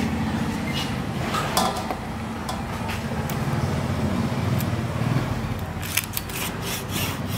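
Cleaver chopping a quail on a wooden chopping block: a quick run of sharp strikes near the end, after a couple of lighter knocks as the bird is handled on the block. A steady low motor-like hum runs underneath.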